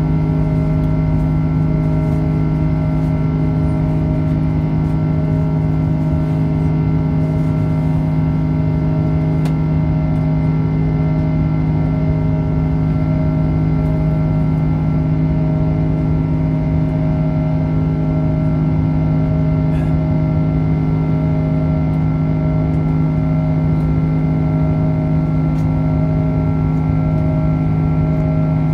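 Airbus A330-300's Rolls-Royce Trent 700 engines heard inside the cabin during the climb: a loud, steady drone with a low rumble and several held humming tones that do not change.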